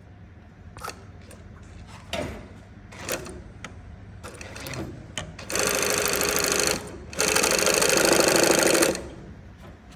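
High-speed single-needle cylinder-bed lockstitch sewing machine with compound feed and walking foot, stitching in two short runs of about a second and about two seconds, after a few sharp clicks.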